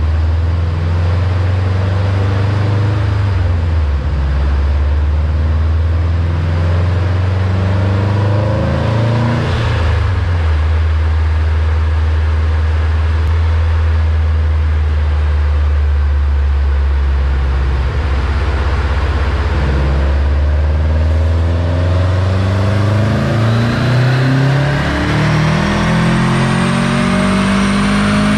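2013 Subaru STI's turbocharged flat-four with an aftermarket catback exhaust, running steadily at low revs on a chassis dyno. From about 22 seconds in its pitch climbs smoothly as the engine revs up under load, the start of a dyno pull.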